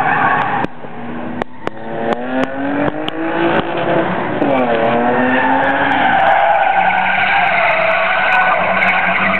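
Nissan 240SX drifting. The engine revs up with a steadily rising pitch over a couple of seconds and dips briefly about halfway through. It then gives way to a long, steady tire squeal as the car slides sideways, with the engine running on underneath.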